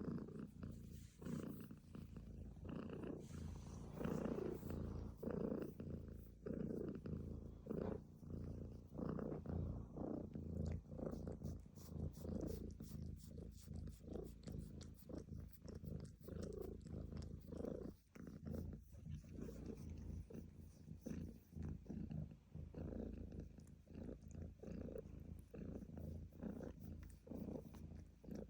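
Domestic cat purring steadily and close up, a low rumbling purr that swells and eases about once a second with its breathing.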